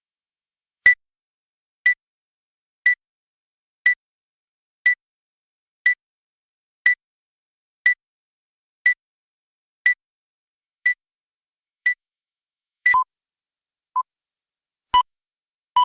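CNC machine's cycle-complete beeper signalling that the machining cycle has finished: short electronic beeps about once a second with silence between. After about a dozen, the beeps drop to a lower pitch for the last few.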